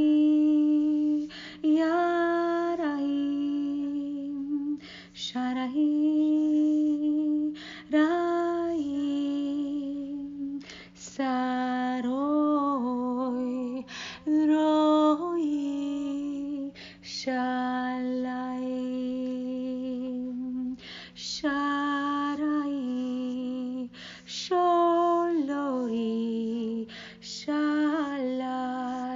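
A woman's solo voice singing long, held wordless syllables in a slow, chant-like improvisation, in phrases of a few seconds with short breaks and gliding pitch changes. A faint steady low drone sounds underneath.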